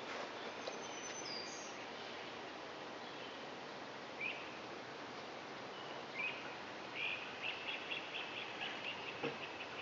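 Wild birds singing over steady outdoor background noise: a few short chirps, then a rapid trill of repeated high notes from about seven seconds in.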